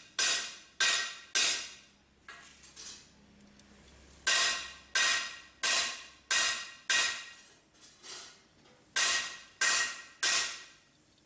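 Metal struck repeatedly: sharp ringing hits about 0.6 s apart, in runs of three and five, with a few fainter hits between the runs.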